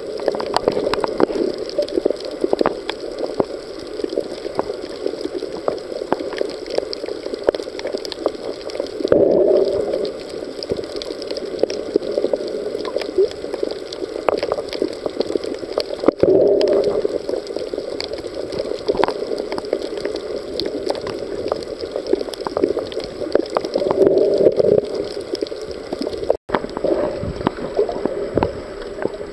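Underwater ambience picked up through a camera's waterproof housing on a shallow reef: a steady crackle of small clicks under a muffled rushing sound that swells about every seven or eight seconds.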